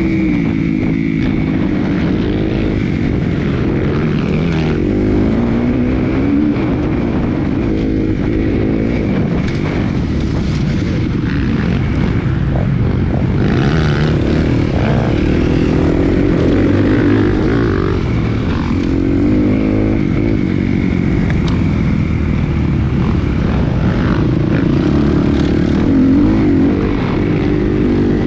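Motocross bike's engine heard from on board while riding, its pitch rising and falling over and over as the throttle is opened and shut through the turns and straights.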